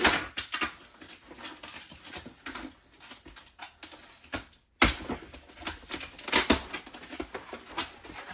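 Rummaging through a box of toys: irregular clicks, knocks and rustling as items and packaging are handled and moved, with a short silent break about halfway through.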